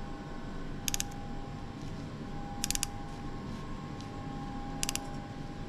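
Outside micrometer's ratchet stop clicking as it is closed on a used piston to measure its diameter: three short runs of quick clicks, a couple of seconds apart, over a faint steady hum.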